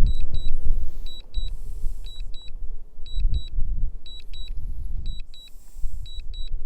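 DJI Mini 3 Pro remote controller beeping in short high double beeps about once a second, the alert it sounds while the drone is returning to home. Strong wind buffets the microphone with a gusty low rumble underneath.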